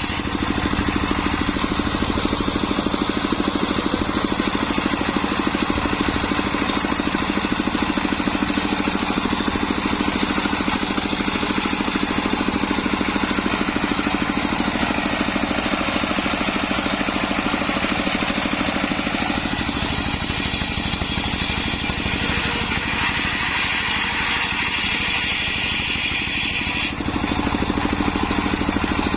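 Homemade circular sawmill rig running steadily, its drive giving an even, rhythmic hum, while sengon wood is ripped into rafters. About two-thirds of the way in the sound turns brighter and higher for several seconds, then drops back suddenly.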